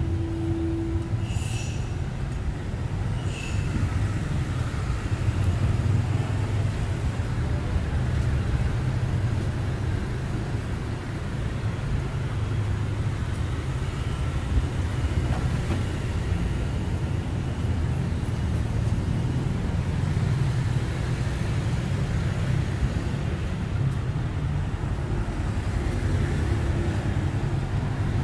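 Steady city street traffic noise, a continuous low rumble with a few short high beeps in the first few seconds.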